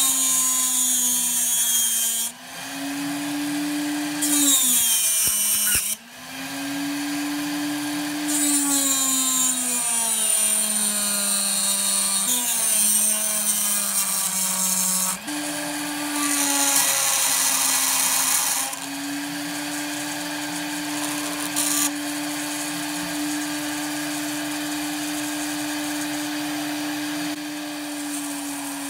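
Flex-shaft rotary tool spinning a small Dremel-style milling cutter into a workpiece held in the lathe chuck. The motor's steady whine sags in pitch each time the cutter bites, with bursts of cutting noise several times over the first two-thirds.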